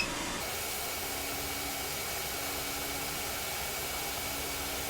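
Hot air rework station blowing a steady hiss, set to 480 °C with airflow 30, heating a tiny resistor to desolder it from a circuit board. A faint click comes right at the start.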